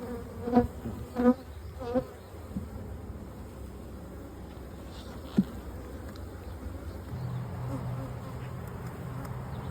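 Honeybees buzzing around an opened hive during a frame inspection. There are three short, loud passes close by in the first two seconds, a sharp click about halfway through, and a steadier hum that builds over the last few seconds.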